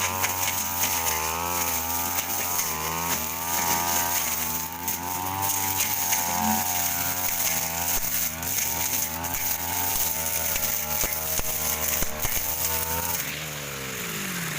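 Stihl brush cutter's two-stroke engine running at high revs, its pitch wavering as the blade cuts through thick undergrowth. Near the end the throttle eases off and the engine note falls away.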